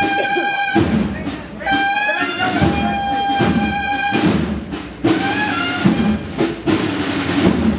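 A cornetas y tambores band, bugles and drums, playing a processional march: long held bugle notes in unison, changing about once a second, over drum strikes.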